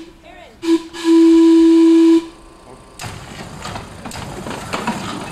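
The quarter-scale electric streetcar's whistle gives a short toot, then a longer blast of one steady pitch. About three seconds in, the car starts rolling, its wheels rumbling and clicking along the track.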